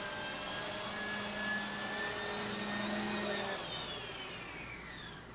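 Small electric motors of a JJRC Dusk toy RC helicopter whining steadily as it comes in to land, then spinning down with a falling pitch after it touches down, about three and a half seconds in.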